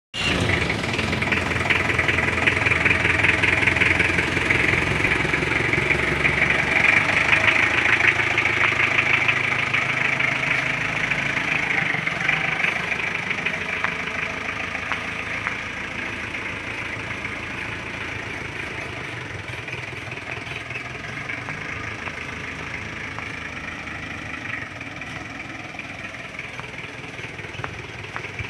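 Old Mahindra jeep's engine running, loudest for about the first dozen seconds and then gradually quieter as the jeep drives off along a dirt track.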